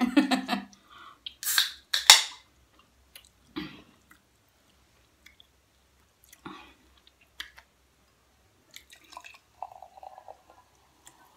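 A Coca-Cola aluminium can being opened: two sharp hissing pops of the pull tab, about a second and a half and two seconds in. Near the end the cola is poured into a glass, a steady gurgling fizz.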